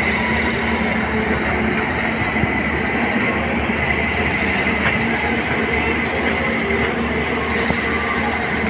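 Caterpillar long-reach excavator's diesel engine running steadily as the boom works, a low drone with a steady high whine over it.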